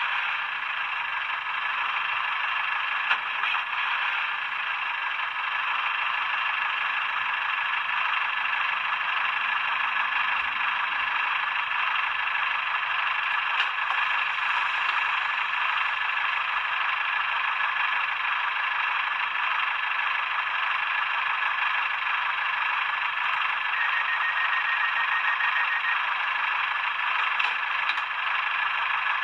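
Recorded Class 142 diesel railcar engine sound running steadily, played by an ESU LokSound v5 Micro decoder with a Legomanbiffo sound file through a tiny Sugarcube speaker in an N gauge model, thin and tinny with little bass.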